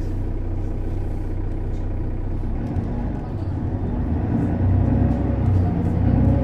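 Mercedes-Benz O 530 Citaro bus with its ZF automatic gearbox, running with a steady low engine rumble. It grows louder about two-thirds of the way in as it picks up, with a faint rising whine near the end.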